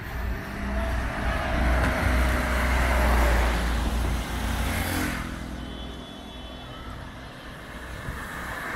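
Road traffic: a car passing close by, its noise building to a peak about two to three seconds in and then fading, with another vehicle approaching near the end.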